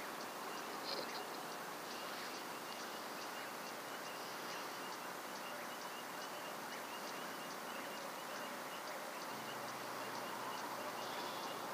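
Faint night ambience: a steady hiss with soft, evenly repeated chirping at one pitch, the sound of insects.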